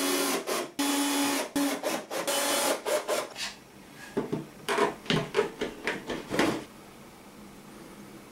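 Cordless drill-driver running in short bursts, whirring as it drives screws into plywood. Then, from about four seconds in, a string of about ten sharp ratcheting clicks as one-handed bar clamps are squeezed tight.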